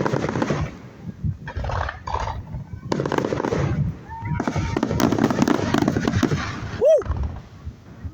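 Fireworks going off in repeated bursts of crackling and popping, several volleys with short gaps between them, the longest about halfway through.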